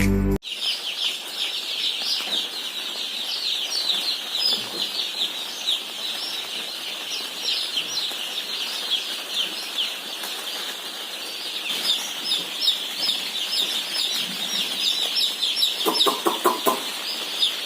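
Many broiler chicks peeping together: a dense, steady chorus of short, high, falling chirps.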